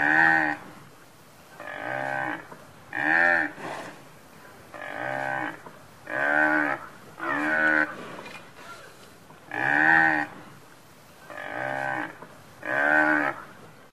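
Water buffalo lowing: about nine short calls in a row, each bowing up and then down in pitch, a second or two apart.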